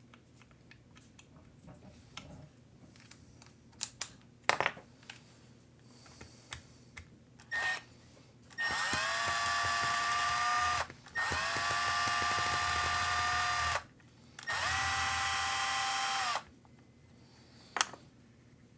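Small cordless electric screwdriver with a hex bit running in three bursts of about two seconds each, after a brief blip, driving or backing out screws; a few light clicks of tools being handled come before and after.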